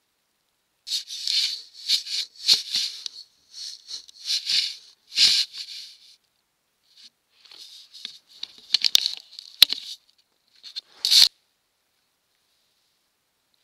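Irregular scraping, rustling and clicking right at a trail camera as an animal nudges and handles it, knocking its view askew, with a few sharp knocks and a last loud scrape about eleven seconds in.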